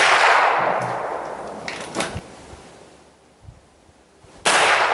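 Rifle shot from a .22LR rifle firing an airgun pellet on a nail gun blank, its echo dying away over about two seconds, with a short sharp crack about two seconds in. A second loud report comes near the end.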